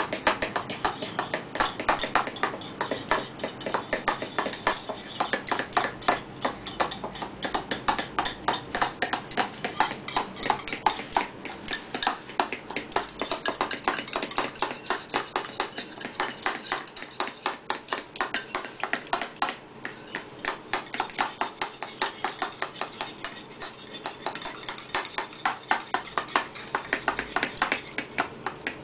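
Wire whisk beating eggs in a ceramic bowl, the wires clicking against the bowl at several strokes a second in a quick, fairly even rhythm.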